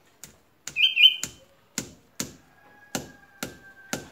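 Hammer knocking nails into a mango tree trunk: about nine sharp, evenly spaced blows, roughly two a second. A short high squeal about a second in coincides with the loudest blows.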